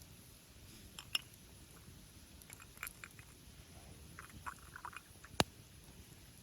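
Wood campfire crackling: scattered small snaps with one loud sharp pop about five seconds in.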